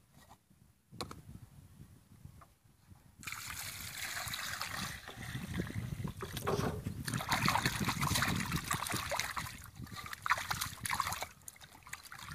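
Water splashing and sloshing in a vessel, starting about three seconds in and stopping about a second before the end.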